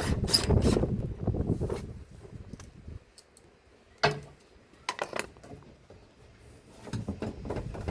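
Washing machine bottom cover panel and its parts being handled and fitted: a clattering rattle, then a few sharp clicks about four and five seconds in as pieces snap into place.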